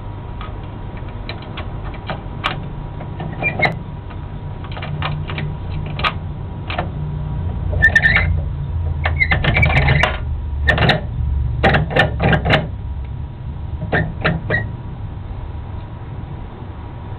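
Coin mechanism of a 20p sweet vending machine being worked by hand: scattered metallic clicks as the coin is fed in, then a dense run of clicking and rattling from about eight seconds in as the knob is turned, with more clicks after it. A steady low rumble runs underneath.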